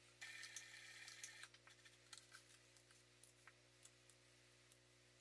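Near silence: a faint rustle of canvas being handled at a sewing machine for about the first second and a half, then scattered light clicks over a low steady hum.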